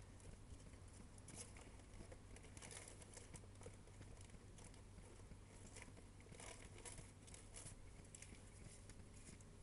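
Faint, scattered rustling and crackling of paper being crumpled and torn to start the forge fire, over a low steady hum.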